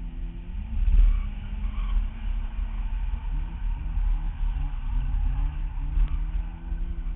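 Nissan 240SX drift car's engine heard from inside the car as it slides sideways, under a heavy low rumble. In the middle the revs rise and drop in quick pulses, about three a second.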